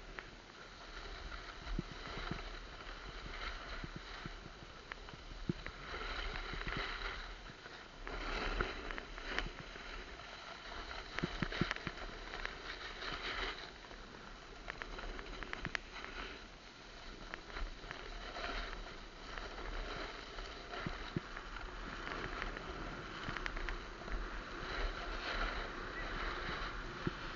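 Snowboard sliding and scraping down packed snow: a rushing noise that swells and fades every few seconds, with a few sharp clicks.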